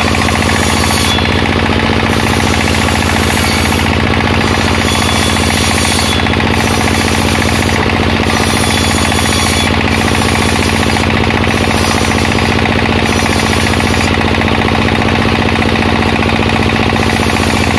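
Bench circular saw (serkel) running steadily with a rapid pulsing drone, its blade ripping waru wood planks, the high hiss of the cut coming and going as boards are pushed through.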